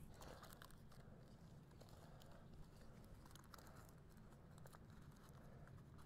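Faint crinkling of a foil-lined packet being handled, with scattered small crackles and rustles.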